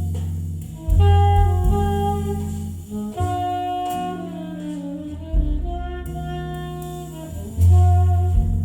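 Jazz: an alto saxophone plays a slow, gliding melody over deep bass notes that sound about a second in, again about halfway through and near the end, each dying away. The music is heard as played back through hi-fi loudspeakers.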